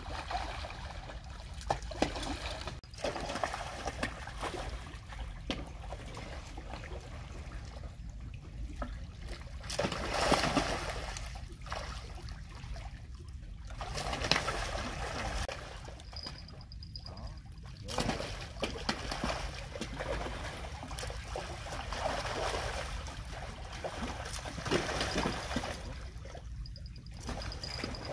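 Water trickling and splashing around a small boat, with scattered knocks, surges of splashing at about ten and fourteen seconds in, and faint voices.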